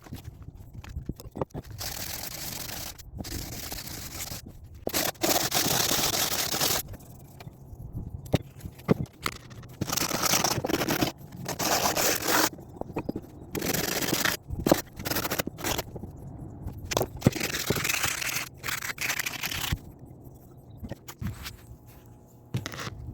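Repeated hand scraping strokes of an antique hatchet being cleaned up, each stroke lasting one to two seconds, with short pauses and a few sharp clicks between them.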